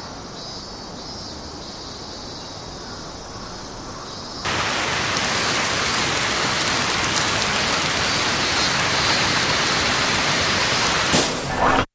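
A steady, even rushing noise, like heavy rain, that jumps much louder about four and a half seconds in and cuts off abruptly at the very end.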